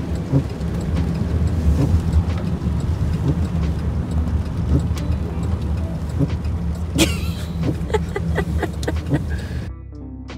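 Car cabin noise while driving: a steady low rumble of the road and engine with a hiss over it and scattered ticks. A brief scraping noise comes about seven seconds in, followed by a quick run of ticks. The cabin noise cuts off about a second before the end, giving way to quiet background music.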